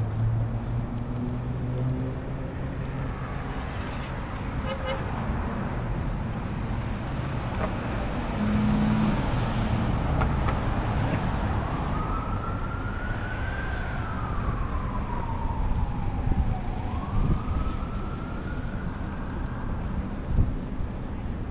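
City street traffic noise with vehicle engines, and from about halfway in an emergency vehicle siren wailing, its pitch slowly rising, falling and rising again.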